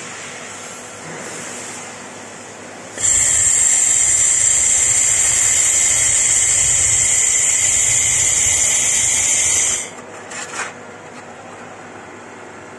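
1000 W handheld fiber laser welding gun firing on a metal plate. A loud, steady hiss starts suddenly about three seconds in, holds for about seven seconds and cuts off, followed by a couple of short puffs.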